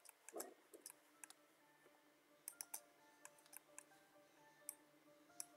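Faint, irregular clicks of a computer mouse and keyboard being worked, over quiet background music with held notes.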